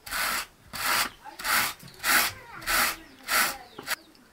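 Raw wool being carded by hand, a toothed carder drawn through the fibres in six even strokes a little more than half a second apart.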